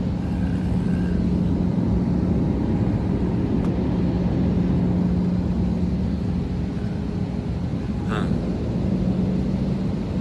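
Steady drone of a jet airliner's cabin in flight, engine and air-conditioning noise with a low hum. A brief sharp sound about eight seconds in.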